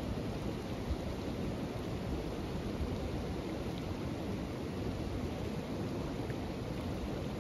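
Steady rushing noise with no distinct events, heaviest in the low range.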